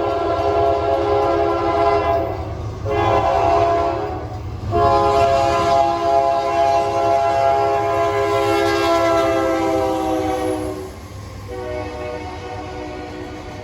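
Nathan K3-series 'Narrow Font' three-chime locomotive air horn sounding a chord in blasts: one that cuts off about two and a half seconds in, a short one, then a long blast of about six seconds whose pitch sags slightly. Near the end the horn drops lower and quieter, as a passing train's horn does. A low train rumble runs underneath.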